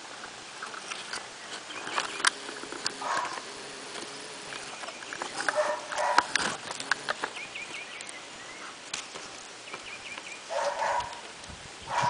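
Several short animal calls a few seconds apart, over faint high chirps and small clicks.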